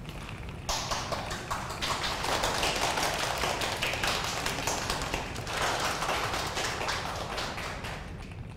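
A small audience clapping. The applause starts about a second in and dies away toward the end.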